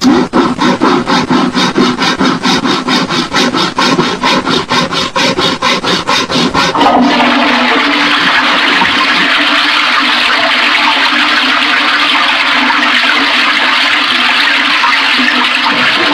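Cartoon sound effects: a toilet paper roll spinning on its holder as the paper is pulled off, a rapid even clicking of about five clicks a second. After about seven seconds it gives way to the steady rush of a toilet flushing.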